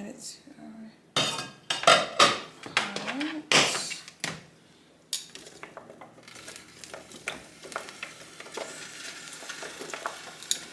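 Pot and utensils clattering as vegetables are added to a cooking pot: several loud clanks in the first half, then a quieter steady hiss with light ticks, like food simmering in the pot.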